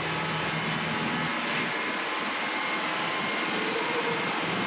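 Steady hiss and hum of machinery in a car repair workshop, with a low hum that cuts off about a second in.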